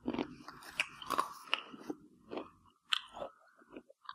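Baked banana chips being chewed with the mouth closed, close to the microphone: an irregular run of crisp crunches and cracks, a few louder ones standing out.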